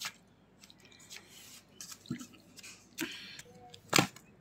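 A hand stirring and rubbing dry flour in an aluminium bowl: soft, irregular rustling and scraping, with one sharp knock about four seconds in.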